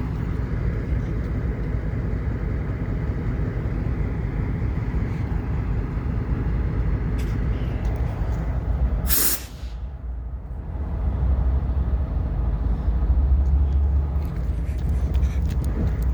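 Steady low engine rumble, with a short loud hiss of released air about nine seconds in. The rumble grows louder a couple of seconds later.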